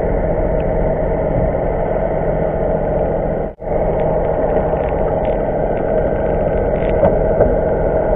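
Steady drone of a skipjack fishing boat's engine and propeller, picked up underwater and muffled. It breaks off for an instant a little under halfway through, and a few faint ticks follow.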